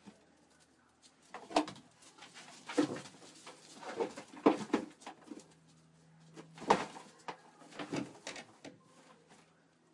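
Livestock feeding at a plastic tub of dry bread: an irregular series of sharp knocks and crunches as hooves strike the tub and dry food is bitten and shifted.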